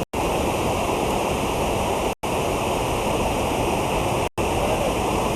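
Steady rushing noise with no distinct events, cut by brief silent gaps about every two seconds.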